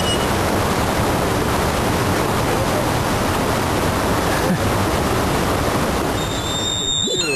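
Steady rushing of a mountain river. A high-pitched squeal comes in near the end.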